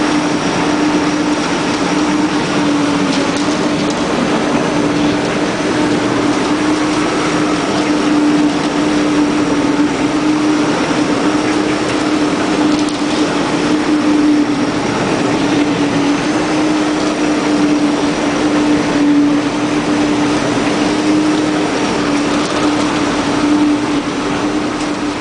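Renault 103-54 tractor's diesel engine running steadily as it drives a Keenan Easi-feeder 115 paddle mixer wagon tumbling silage: a constant mechanical drone with a steady hum.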